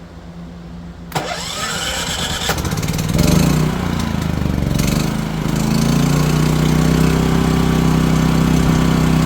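Champion dual fuel portable generator's engine cranking from about a second in, catching about three seconds in, then settling into a steady run with the choke on.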